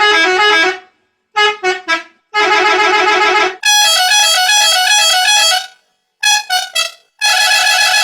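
Musical bus horn playing a fast warbling tune of rapidly alternating notes, cut into several short phrases with brief silences between them. The longest phrase, around the middle, is pitched higher.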